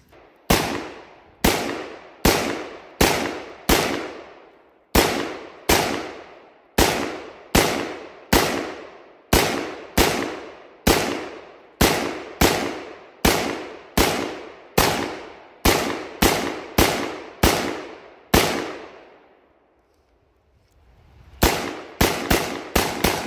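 Palmetto State Armory AR-15 pistol with a 7.5-inch barrel firing 5.56 rounds semi-automatically, a steady string of about two dozen sharp shots less than a second apart, each trailing off in a short echo. After a pause of about two seconds comes a quicker burst of five or so shots near the end. These are the first shots from the newly assembled pistol, and it cycles without a stoppage.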